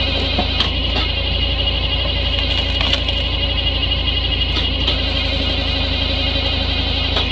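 Tractor-driven PTO hydraulic log splitter running steadily, its engine and pump making a constant drone with a whine on top. A few short knocks and cracks of wood come through as a log is split and the pieces are handled.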